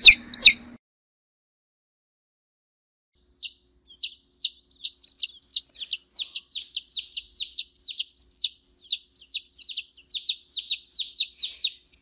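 Baby chicks peeping: two high peeps that slide downward in pitch and stop within the first second, then after a short gap a fast, even run of the same peeps, about two or three a second, until the end.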